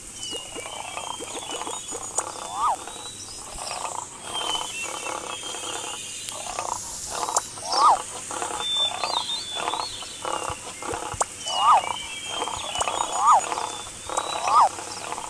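Lion growl and roar sound effects with a pulsing growl throughout. Short, sharp rising-and-falling cries stand out every second or two, over high bird chirps.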